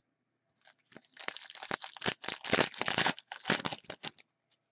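Plastic wrapper of a hockey card pack crinkling and tearing as it is ripped open by hand. The dense rustle starts about a second in and stops shortly before the end.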